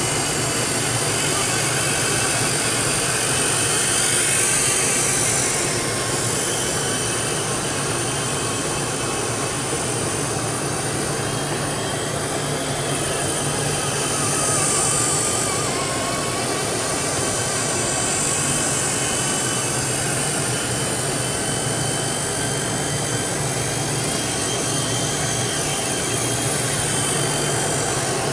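Blade mCPX micro electric RC helicopter in flight: a steady high whine of its motors and spinning rotors, swelling a little louder twice, about four seconds in and again around fifteen seconds in.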